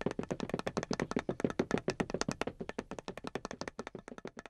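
Rapid light tapping, about ten taps a second, serving as the sound effect of scurrying footsteps; it thins out and fades away near the end.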